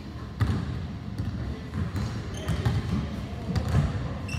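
Basketballs bouncing on a hardwood gym floor: a run of irregular thuds, the sharpest about half a second in.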